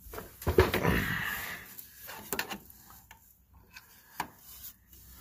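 Handling noise under the machine: a rubbing, scraping stretch about half a second in, then a few light knocks and clicks.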